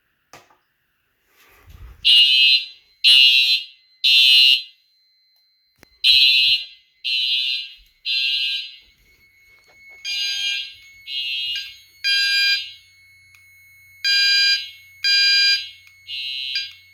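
Fire alarm horns sounding in the temporal-three evacuation pattern, set off by a heat detector test: three short blasts, a pause, then three more, starting about two seconds in. About ten seconds in, a second horn with a lower, purer tone joins. One of the horns, a Gentex GOS, is skipping beats, which the owner calls an issue.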